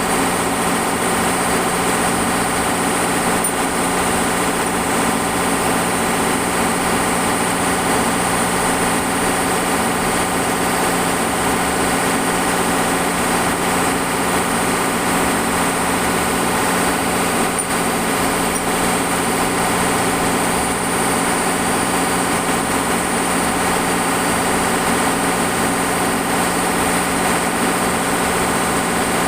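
Shipboard machinery running steadily on a longline fishing vessel: a constant, unchanging drone with a high steady whine above it.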